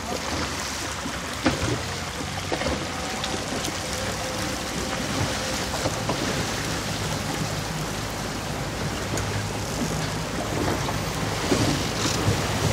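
Steady wind and water noise from a boat under way on open water, with a low motor hum underneath and a few scattered knocks.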